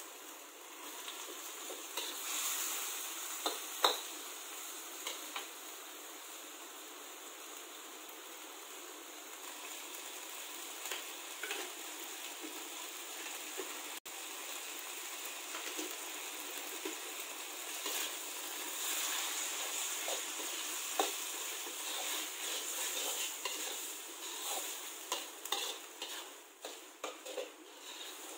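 Macaroni and egg sizzling in oil in a hot wok, with a metal spatula scraping and knocking against the pan as it is stir-fried. There is a sharp knock about four seconds in, and the scrapes come more often near the end.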